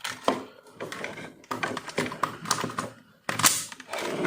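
Clicks, taps and knocks of a Kamen Rider W CSM Lost Driver toy belt being handled and reassembled, the driver unit snapping back onto its belt, with a louder clatter about three and a half seconds in.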